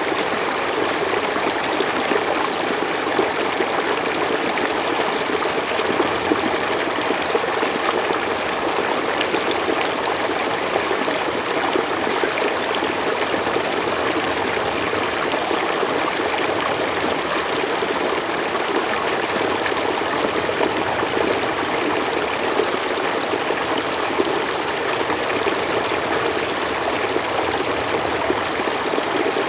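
River water flowing steadily over rocks, a constant rushing and babbling with no change in level.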